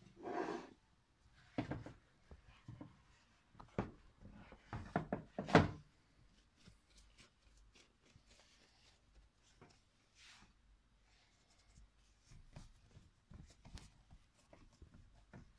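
Hands handling and pressing soft yeast dough in a baking dish: several knocks and thuds in the first six seconds, the loudest about five and a half seconds in, then faint patting and rubbing as the dough is pressed out flat.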